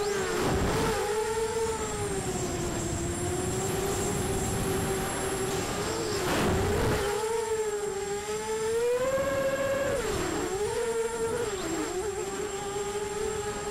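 Emax Nighthawk 250 racing quadcopter's brushless motors and propellers whining in flight, the pitch rising and falling as the throttle changes. A few gusts of wind rush across the onboard microphone.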